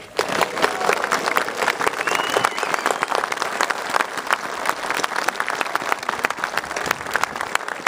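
A large crowd applauding, many people clapping at once in a dense, steady patter.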